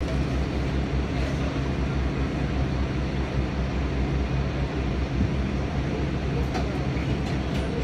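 A train standing at the platform, its engine idling with a steady low hum, with a few faint clicks near the end.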